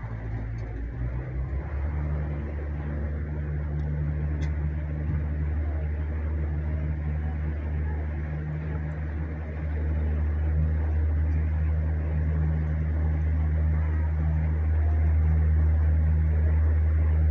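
Tour boat's motor running with a steady low drone, growing louder about two seconds in and again about ten seconds in.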